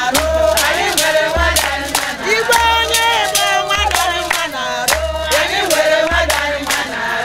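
A group of women singing a call-and-response style song together with rhythmic hand-clapping, over a low beat that thuds about once a second.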